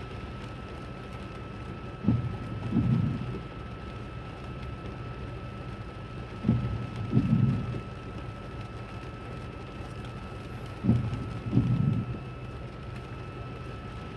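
Rain falling on a car while driving, heard from inside the cabin. A low double thump comes three times at even spacing, about every four and a half seconds, the regular beat of windshield wipers on an intermittent setting. A thin steady tone runs underneath.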